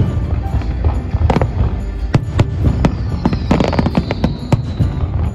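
Aerial fireworks shells bursting in quick succession, a dense run of sharp bangs over a continuous low rumble, with music heard underneath. About halfway through, a high tone slides slowly downward.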